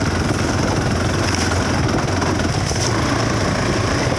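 Dual-sport motorcycle engine running steadily while riding, over a steady rush of wind noise.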